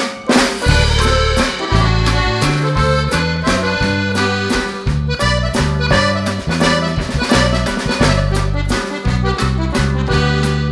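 Instrumental background music with a steady beat, a moving bass line and rhythmic chords.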